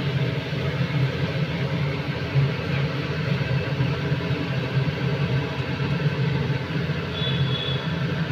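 Steady low hum with a hiss over it, the running noise of a kitchen while a steel spatula stirs peas and masala in a non-stick kadhai on a gas burner.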